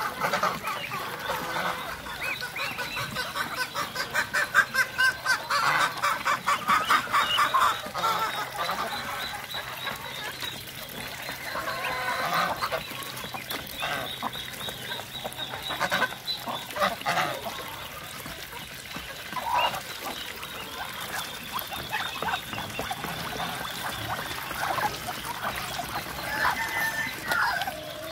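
Muscovy ducks and chickens feeding together at a trough: a fast clattering run of bills working in the feed, loudest a few seconds in, with scattered short calls from the flock.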